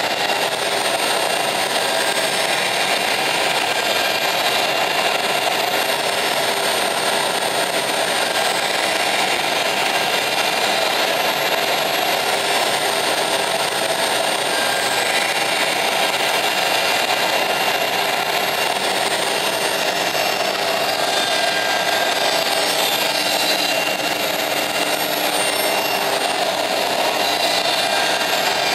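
CNC router spindle milling MDF: a steady machine noise with several thin, constant whining tones running through, unbroken.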